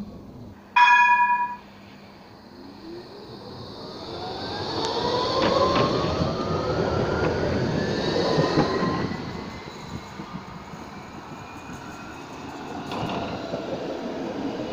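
Nottingham Express Transit tram moving off and passing close. The whine of its traction motors rises steadily in pitch as it speeds up, over wheel and track noise, and is loudest as it goes by before easing off. About a second in there is a short, loud electronic beep.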